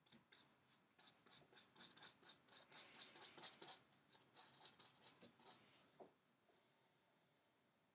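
Faint scratching of a paintbrush dabbing oil paint onto canvas in quick short strokes, about four a second, then one lone tap about six seconds in.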